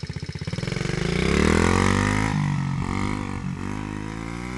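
Coolster pit bike's small single-cylinder four-stroke engine ticking over, then revving up as the bike pulls away in first gear. The pitch drops sharply a little after two seconds, and the engine fades as the bike rides off.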